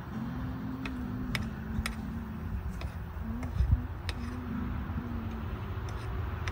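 Eggs and tomatoes frying in a pan on a portable gas stove, spitting with sharp irregular pops about once or twice a second, over a low hum.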